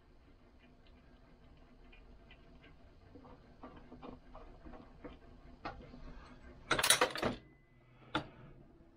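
Light metallic clicks and taps of parts being handled and adjusted on a shotshell reloading press, with a louder rattling clatter about seven seconds in and a single sharp click a second later.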